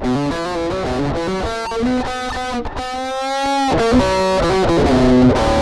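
Electric guitar played through a Boss GT-1 multi-effects processor on its distorted 'Dragon Metal' patch: a run of single notes, with one held, wavering note about three seconds in.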